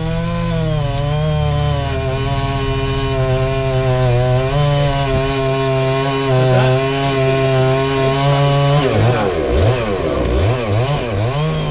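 Chainsaw running under load, cutting a notch into a large standing tree trunk, its engine pitch holding fairly steady. From about nine seconds in the engine speed swings rapidly up and down, over and over.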